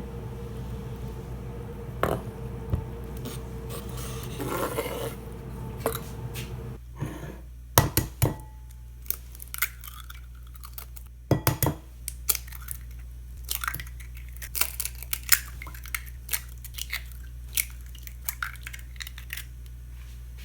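Kitchen knife knocking on a cutting board as vegetables are cut: irregular sharp knocks and clicks, with a few heavier thumps about a third of the way in. A steady background noise stops about seven seconds in.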